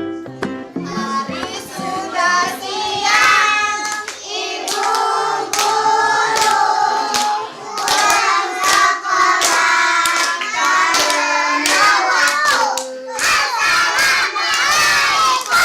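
A group of young children singing together and clapping their hands.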